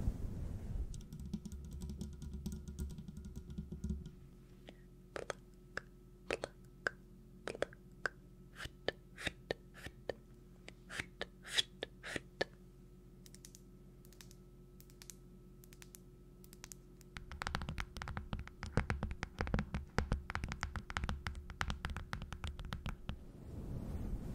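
Irregular sharp clicks and taps, scattered at first and then coming in a dense run for the last several seconds, over a faint steady hum.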